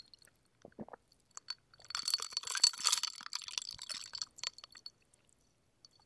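Iced cherry ade being sucked up through a drinking straw, close to the mouth: a noisy, crackling sip about two seconds in that lasts about two seconds, after a few faint mouth clicks.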